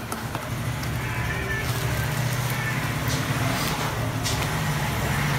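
Steady traffic noise with engines running: a low hum under an even hiss. It stops abruptly near the end.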